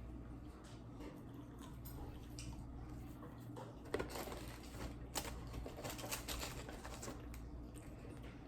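Faint chewing and wet mouth clicks of someone eating, with scattered small crackles and a sharper click about four seconds in.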